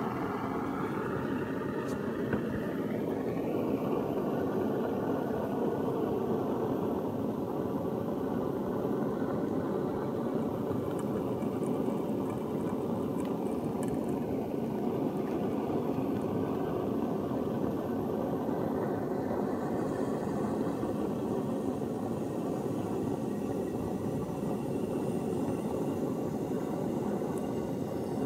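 Handheld gas blowtorch burning with a steady rush, its flame held on a copper solder-ring fitting to heat the joint until the solder melts.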